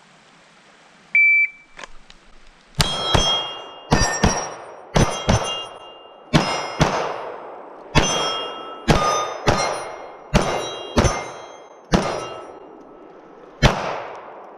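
A shot timer beeps once about a second in. Then a Smith & Wesson M&P9 M2.0 compact 9mm pistol fires a string of about fifteen shots, many in quick pairs. Steel targets ring after the hits.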